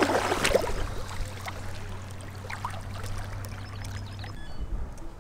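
Water splashing and pouring, loudest in the first second, then a quieter trickle.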